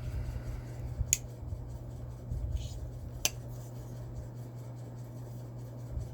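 Cold Steel Night Force folding knife being handled, with two sharp clicks about two seconds apart over a low rubbing of hands on the knife.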